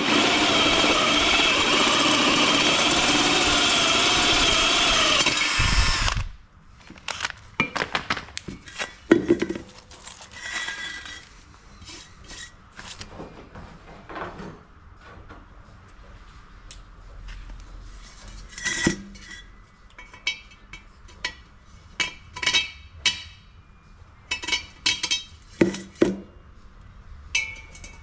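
DeWalt cordless drill boring through the wall of a red metal cylinder for about six seconds, its motor whine wavering as the speed changes, then stopping abruptly. After that come scattered clinks and knocks of the metal cylinder and small parts being handled.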